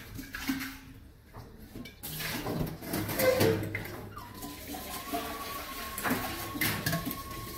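Large stainless steel pot being washed in a steel sink: water running and splashing, with knocks and scrapes as the pot is tipped and handled against the sink. A thin steady tone starts about halfway through.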